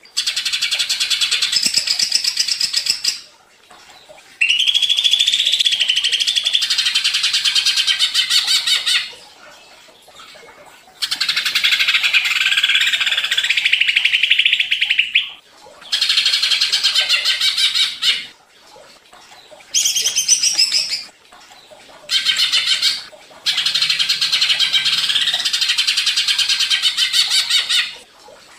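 Cucak ijo (green leafbird) singing hard in its rapid, chattering 'ngentrok' song: about seven loud phrases of quick, trilled notes, each one to five seconds long, with short pauses between them. It is the agitated, full song used as a lure to rouse other leafbirds into singing.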